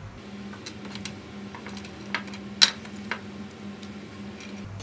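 Small hard clicks and clinks of plastic and metal RC parts and connectors being handled and set down on a tabletop: a handful of separate clicks, the loudest about two and a half seconds in, over a faint steady hum.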